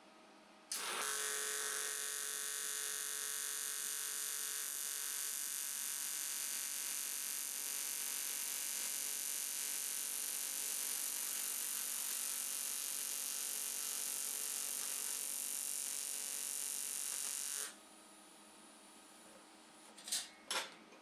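AC TIG welding arc on aluminium, with the frequency set at 100 Hz, buzzing steadily. It strikes about a second in and cuts off abruptly near the end, followed by a few light clicks.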